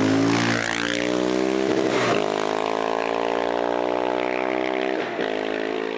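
Motorcycle engine running at a steady note, with a few short pitch sweeps as bikes pass.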